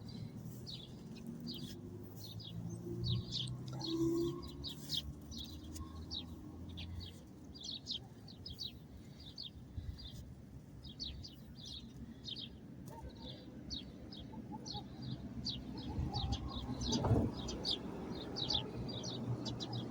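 Small birds chirping in quick, short calls again and again over a low background rumble, with a brief louder knock about three-quarters of the way through.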